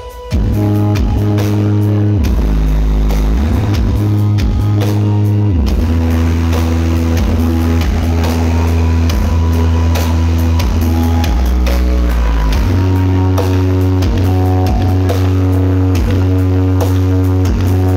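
Loud music with rock guitar and drums blasting from BP Audio's large truck-mounted sound system during a sound check. Heavy sustained bass notes dominate, and the music comes back in at full level just after the start.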